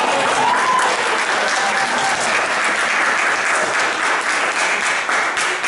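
Audience applauding, a dense steady patter of many hands clapping that dies away near the end.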